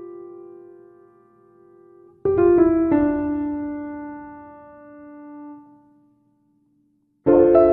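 Background piano music: a held chord dies away, a new group of notes comes in about two seconds in and slowly fades to a short silence, and fresh notes start near the end.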